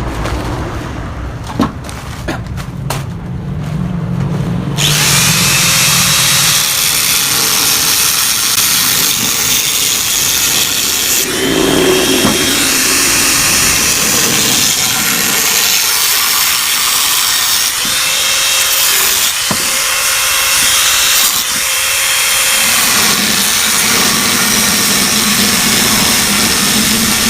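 A power tool cutting into the steel muffler of a Yamaha RX-King two-stroke exhaust as the silencer is opened up for modification. After a few knocks it starts about five seconds in and then runs steadily and loudly, its tone shifting a little as it bites.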